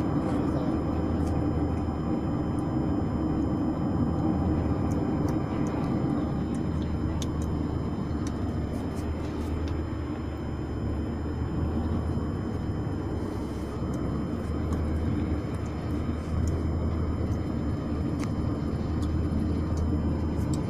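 Steady motor vehicle running, a continuous low engine and road rumble with a few faint clicks.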